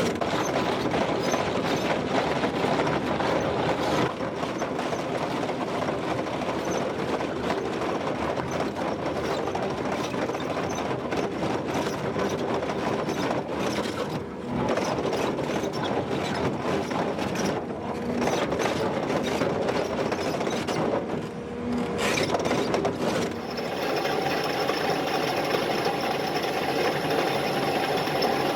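Excavator-mounted chain cutter working rock: a dense, steady clattering and grinding mixed with the excavator's engine, broken by a few abrupt cuts. Near the end it gives way to a steadier engine hum with level tones.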